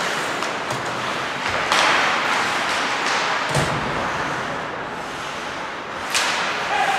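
Ice hockey play in a rink: a steady hiss of skates on the ice, with sharp knocks about two and six seconds in and a dull thump near the middle.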